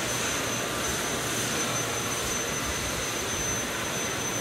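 Baykal CNC hydraulic press brake running, a steady mechanical drone with a thin continuous high whine.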